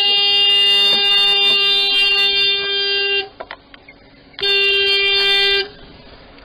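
Car horn sounding two long, steady blasts at one pitch: the first about three and a half seconds, the second about a second long after a short gap.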